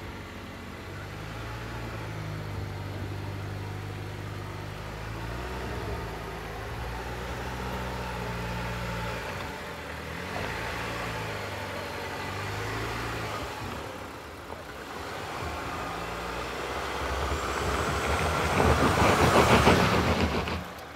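Land Rover Defender's engine running low and steady as it crawls over a rutted sandy off-road track. Near the end it revs hard with a rising whine while the tyres spin and spray sand and dust, then the sound drops off suddenly.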